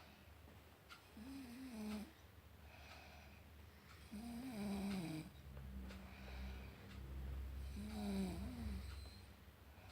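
A woman snoring in her sleep: three snores about three to four seconds apart, each with a wavering pitch.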